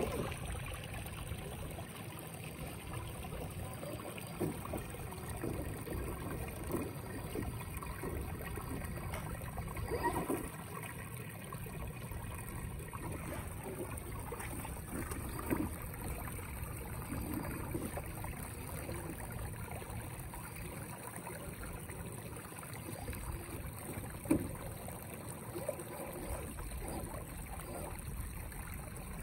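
A 1:10 scale RC crawler with a brushless motor and drivetrain running as it crawls over creek rocks, with a few sharp knocks on rock, the clearest about 10, 15 and 24 seconds in. Under it runs the steady trickle of a shallow stream.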